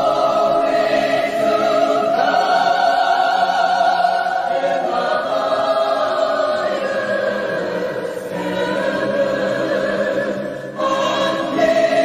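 Choral music: a choir holding slow, sustained chords that change every few seconds.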